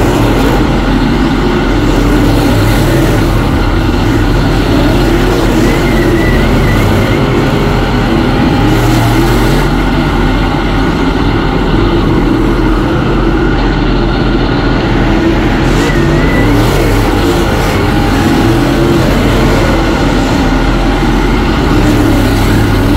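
Several dirt-track modified race cars running hard in a pack, their V8 engines at high revs.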